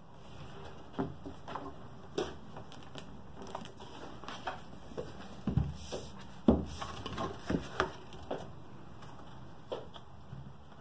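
Rigid cardboard box-set packaging being handled and set on a table: scattered light taps, scrapes and rustles, with a few louder knocks between about five and eight seconds in.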